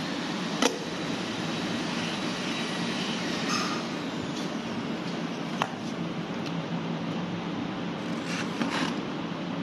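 Handling sounds of an electric scooter's seat post being fitted into its deck clamp and its knob turned: a sharp click under a second in, another a little past halfway, and brief rustling near the end, over a steady background hiss.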